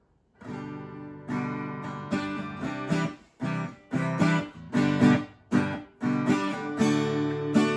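Acoustic guitar strummed, playing a chord introduction that starts about half a second in. In the middle comes a run of short chords, each stopped quickly, then longer chords that ring on.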